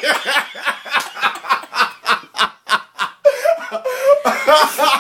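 A man laughing hard in quick bursts, about four a second, with a longer, higher, wavering laugh a little past the middle before the bursts resume.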